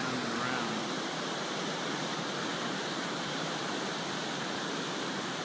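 Steady rushing noise of the Colorado River in flood, pouring through a long rapid.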